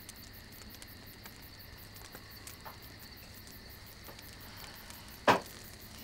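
Quiet room tone with faint clicks of cutlery against dishes at a table where a meal is laid, and one short, sharper sound a little after five seconds.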